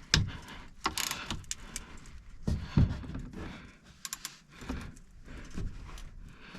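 Irregular metallic clicks and knocks as a socket wrench and socket are handled and fitted onto a car's oil drain plug.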